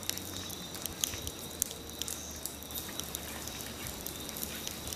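Forest evening ambience: a steady, high-pitched drone of insects with scattered faint clicks and ticks.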